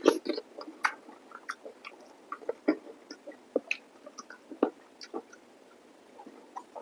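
Close-miked chewing of chicken curry with rice: irregular wet smacks and small clicks of a mouth eating, with a louder cluster right at the start.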